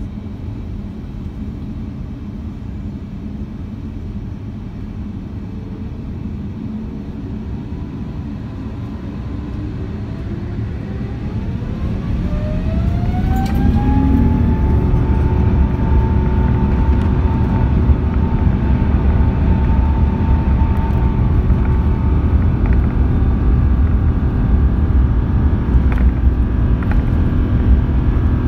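Rolls-Royce Trent XWB turbofan engines of an Airbus A350-900 spooling up to take-off thrust, heard from inside the cabin. A whine rises in pitch about halfway through and then holds as a steady high tone over a heavy rumble that grows louder and stays loud.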